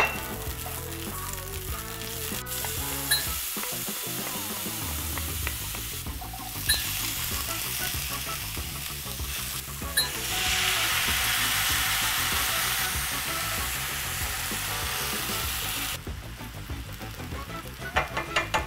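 Green onions and garlic sizzling in hot oil in a nonstick frying pan, stirred with a wooden spatula, with a few sharp knocks of the utensils on the pan. About ten seconds in, broth is ladled into the hot pan and the sizzle grows louder and denser for several seconds, then drops back.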